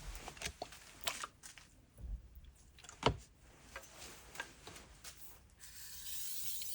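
Knife and whetstone being handled: a string of light clicks and a few low knocks, the loudest about three seconds in, then a steady high scraping hiss from the blade stroking across the whetstone starts near the end.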